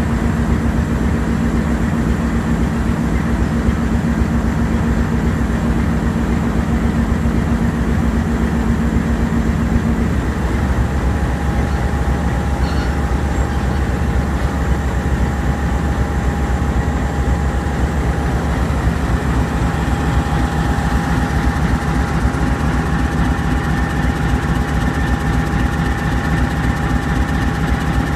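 RGE-20 diesel-electric locomotive idling close by: a loud, steady, heavy diesel rumble. About ten seconds in, its pitch shifts: a low hum drops away and a steady higher whine comes in.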